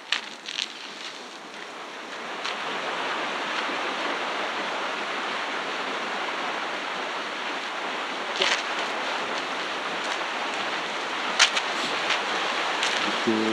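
Stream water rushing steadily, growing louder about two seconds in, with a few sharp clicks over it.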